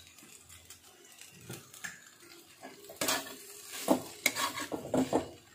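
A metal spatula scraping and clattering in a steel kadhai as noodles and vegetables are stirred and tossed. The strokes are soft at first and grow louder and sharper about three seconds in.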